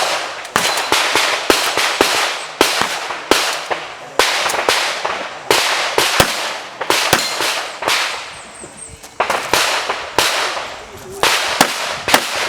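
Rapid handgun fire in an IPSC match course of fire: quick strings and pairs of sharp shots, each ringing on with echo. There is a short pause a little after halfway, and a brief one near the end.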